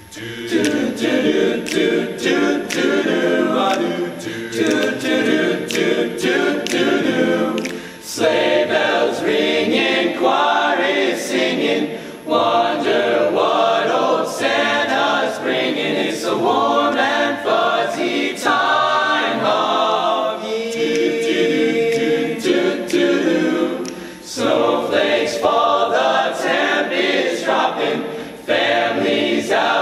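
High school show choir singing a cappella in harmony, in phrases with short breaths between them.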